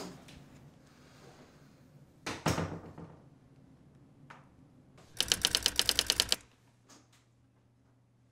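A thump a little over two seconds in, then a rapid run of about a dozen sharp, evenly spaced clicks lasting about a second.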